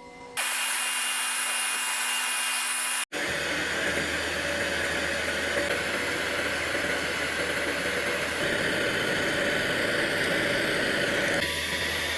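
Orbital welding machine running: a steady hiss with a low hum under it, broken off once by an abrupt cut about three seconds in.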